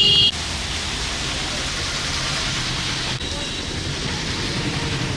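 Street traffic noise, a steady rush of passing vehicles, with a short loud car horn beep right at the start that cuts off abruptly.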